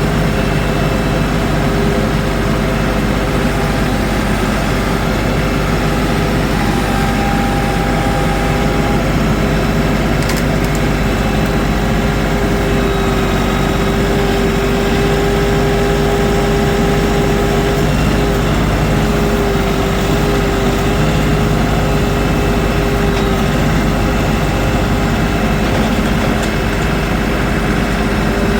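LS tractor's diesel engine running steadily, with a thin whine that holds for several seconds in the middle, while a very heavy log is being moved.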